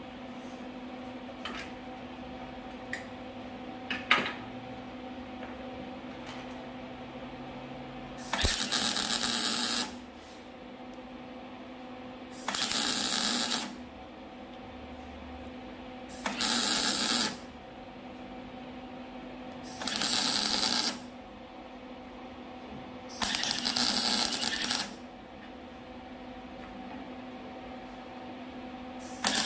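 MIG welder laying short stitch welds on a car's exhaust X-pipe: five bursts of welding noise, each about a second and a half long and roughly three and a half seconds apart, over a steady electrical hum. A few light clicks sound in the first few seconds.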